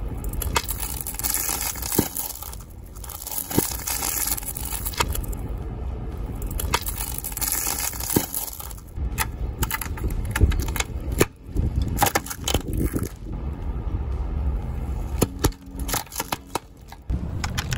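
A car tyre crushing pine cones and Christmas ornaments: dense crunching and crackling, then from about halfway on a run of separate sharp cracks and snaps as a wooden Christmas decoration goes under the tyre.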